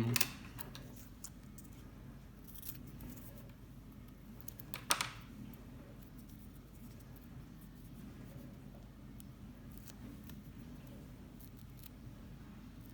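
Scissors cutting double-sided tape: a faint snip a little over two seconds in and a sharper, louder snip about five seconds in.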